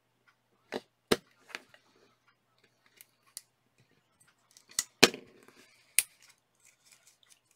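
Utility knife cutting and prying at the plastic wrapping of a CMOS battery pack, opening it to get at the CR2032 coin cell inside. It makes a series of sharp clicks and snaps, the loudest about five seconds in.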